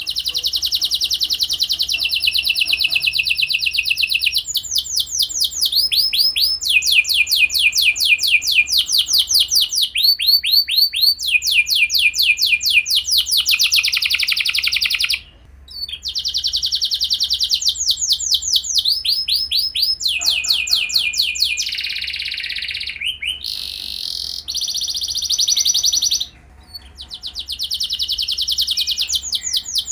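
Canary singing a long, loud song of fast trills: rapid runs of repeated falling notes, switching to a new trill every second or two, with brief pauses about halfway and a few seconds before the end.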